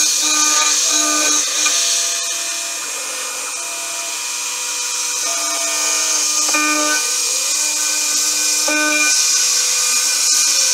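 Home-built CNC milling machine cutting a metal wheel rim with a 4 mm end mill: a steady spindle whine and cutting hiss, with tones that start, stop and glide every second or two as the cutter moves along the contour.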